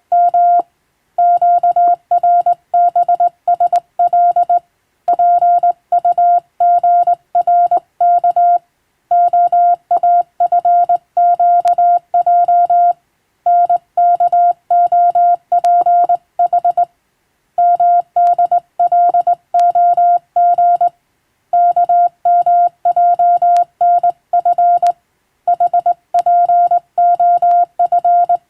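Morse code (CW) sent as a single steady beeping tone, keyed fast in dots and dashes, in runs of characters with short pauses between words.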